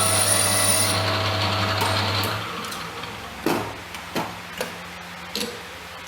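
A small power tool runs steadily with a hum and a high whine, then winds down about two seconds in. Several sharp clicks and knocks of hard parts being handled follow.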